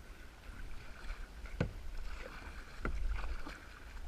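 Kayak paddle strokes in the water, with a sharp knock about a second and a half in and another softer one near the three-second mark, over a low rumble of wind on the microphone.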